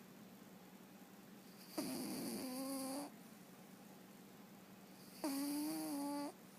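Domestic cat snoring in its sleep: two snores about three seconds apart, each lasting just over a second with a steady pitched tone.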